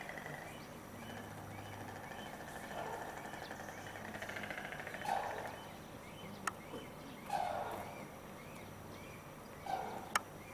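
Animal calls, likely birds: a steady run of short, repeated high chirps, with a lower call every two seconds or so and a couple of sharp clicks.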